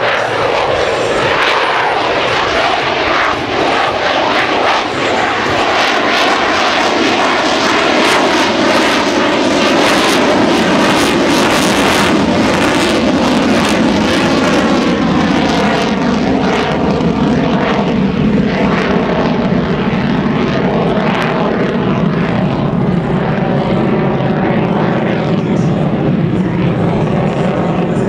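F-35A Lightning II's single Pratt & Whitney F135 turbofan running in afterburner as the jet climbs steeply away: loud, steady jet noise with a slowly sweeping, phasing quality. It grows duller from about halfway through as the jet recedes.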